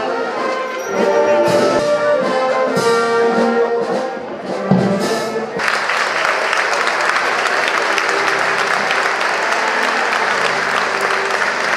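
A brass band plays the last notes of a piece with trumpets and trombones. About halfway through, the music stops suddenly and a crowd's applause takes over and carries on.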